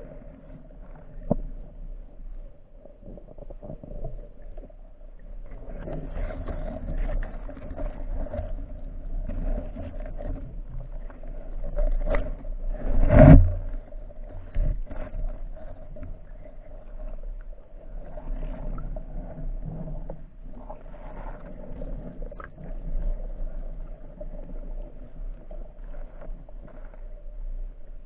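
Muffled underwater noise heard through a camera's waterproof housing: a steady hum with scattered knocks and scrapes, and one loud thump about 13 seconds in.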